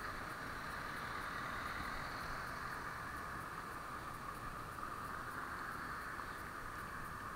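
Steady, muffled street traffic noise as cars and a bicycle pass, with no single vehicle standing out.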